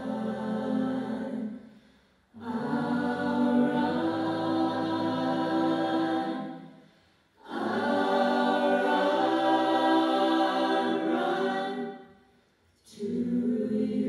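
Vocal jazz ensemble singing a cappella in close harmony: long, held chords sung in phrases, each broken off by a short silence about every five seconds.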